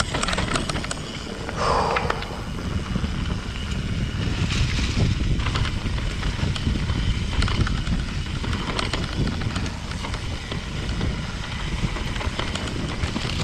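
Mountain bike descending a dirt singletrack: tyres rolling over dirt and roots, with many small rattles and knocks from the bike, and wind rumbling on the microphone.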